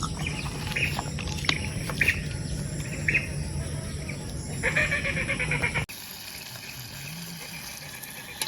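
Several short, high bird calls over a steady low hum, with a longer run of calls about five seconds in; about six seconds in the sound cuts off abruptly to a quieter background.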